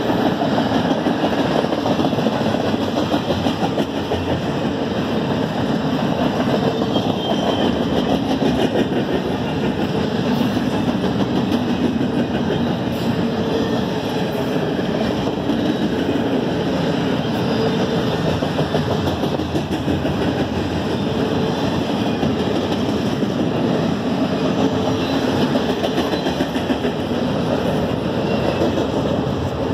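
Double-stack container train's well cars rolling past: steady, continuous noise of steel wheels running on the rails.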